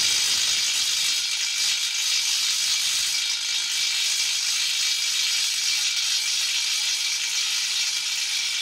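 Makita impact wrench hammering steadily on a 41 mm nut, working to break loose a fastener torqued to 600 Nm.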